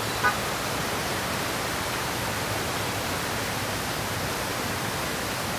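Steady, even noise of a busy city street's traffic and crowd, with one brief high blip about a quarter second in.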